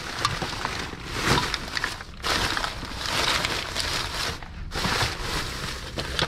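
Plastic bags and food packaging rustling and crinkling as trash in a dumpster is rummaged through by hand. The noise comes in three long stretches of crackling, with short pauses about two seconds in and again after about four and a half seconds.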